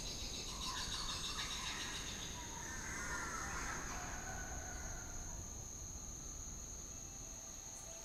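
Tropical forest ambience: a steady, high-pitched insect trill, with chirping animal calls over it in the first half.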